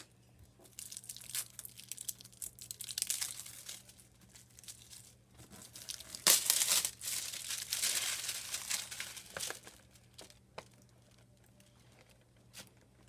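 Plastic wrapping crinkling and rustling as it is handled, with scattered clicks and taps; the busiest, loudest rustling comes about halfway through, then it dies down.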